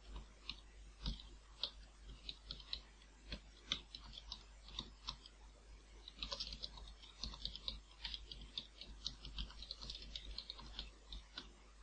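Faint computer keyboard typing: irregular key clicks, coming in a quicker run from about six to ten seconds in.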